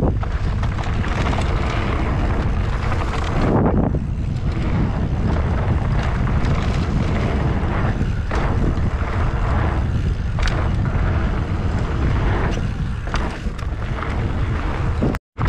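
Wind buffeting the microphone of a mountain bike rider's camera at speed, over the noise of the bike's tyres on a dry, crumbly dirt trail, with frequent short clatters as the bike runs over bumps.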